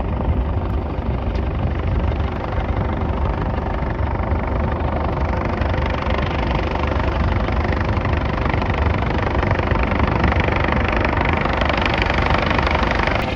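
Coast Guard helicopter hovering, its rotor and turbine noise loud and steady, growing somewhat brighter toward the end.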